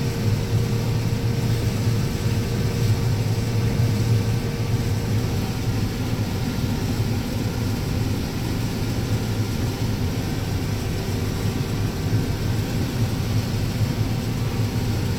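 Combine harvester running steadily while shelling corn: a constant engine and machinery drone that doesn't change.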